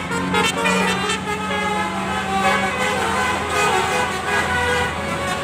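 A bus's multi-tone 'telolet' basuri horn playing a tune of shifting notes over the noise of a passing bus and road traffic. The tune fades out about three and a half seconds in, leaving a low engine rumble that swells near the end.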